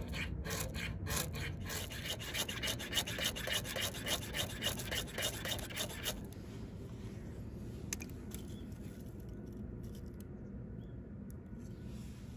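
Ferrocerium fire-starter rod scraped with a striker in quick repeated strokes, about four a second, throwing sparks onto fatwood tinder that keeps failing to catch. The strokes stop about six seconds in, leaving quieter handling with a single click near eight seconds.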